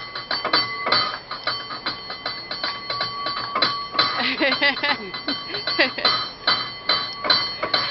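Cable car bell rung in a fast, syncopated rhythm, its strikes coming several a second and ringing on over one another. People's voices are mixed in about halfway through.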